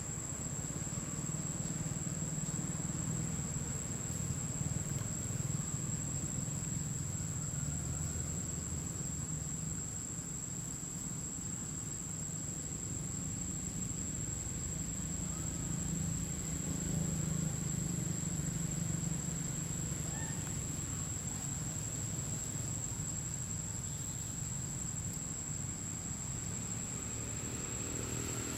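Steady high-pitched drone of insects, unbroken throughout, over a low steady rumble.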